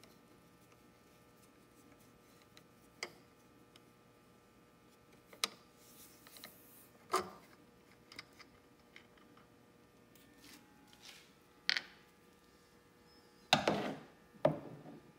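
Scattered light clicks and knocks of a flathead screwdriver and hands working at the fill screw of an outboard's tilt-and-trim reservoir. A louder cluster of knocks and clatter comes near the end.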